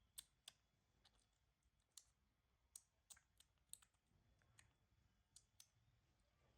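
Faint, irregular sharp clicks, about a dozen scattered over several seconds, against near silence.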